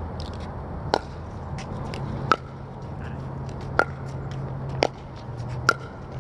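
Pickleball rally: paddles striking the plastic ball in five sharp pocks about a second apart, with fainter taps between them. A steady low hum runs underneath.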